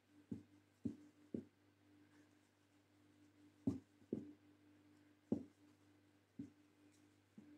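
Faint handling sounds of crocheting: a hook and yarn worked by hand, giving about eight soft, irregular taps over a steady low hum.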